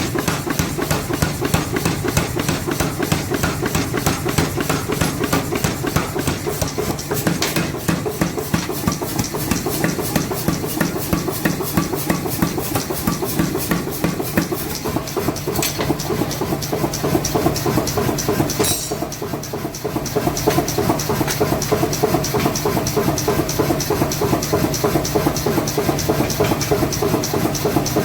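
Mechanical forging power hammer running, striking in a rapid, even rhythm of several blows a second over a steady motor hum, with a brief slackening a little past the middle.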